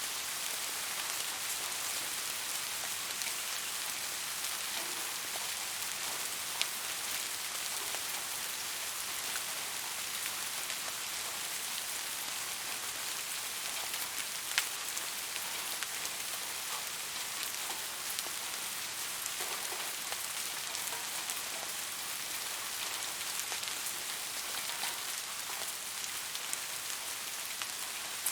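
Steady rain falling, an even hiss with scattered drop ticks and a sharper single drop about halfway through.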